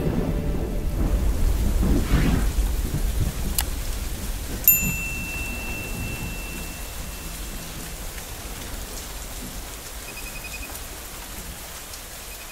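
Logo-reveal sound effects: a deep rumbling swell that slowly fades, a sharp click, then a bright ringing ping about five seconds in, and a faint rapid tinkle near the end.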